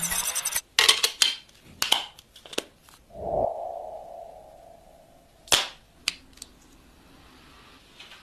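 Sharp clicks and taps of a smartphone and its accessories being handled and set down on a table, several in quick succession, then two more a few seconds later. A ringing tone comes in about three seconds in and fades away over a couple of seconds.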